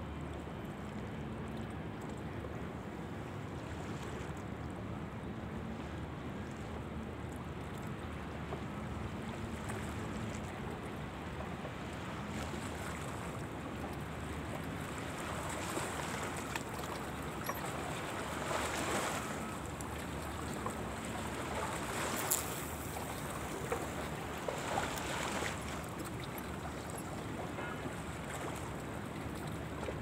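Gentle waves lapping at the water's edge over a steady low hiss and hum. From about halfway through, a few louder splashing washes of water come and go.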